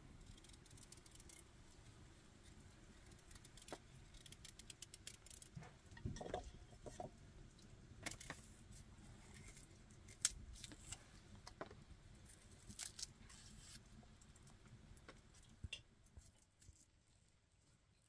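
Faint knife clicks and scrapes as a vegetable is peeled and cut by hand, with one sharper click about ten seconds in.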